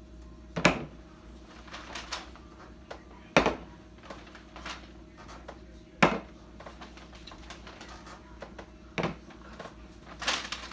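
Sharp knocks and lighter clicking and clatter from someone rummaging inside a homemade giant soda-can container for the toys packed in it, with four loud knocks a few seconds apart, over a faint steady hum.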